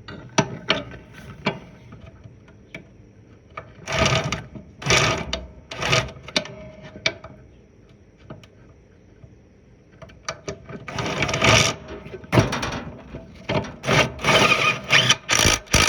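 Hand-tool work and parts handling on a lawn tractor: scattered clicks and knocks with short rattling bursts, coming thick and fast near the end.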